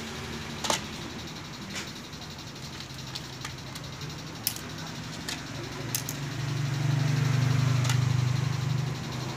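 A low engine hum swells about six seconds in and fades near the end, with a few light clicks scattered through.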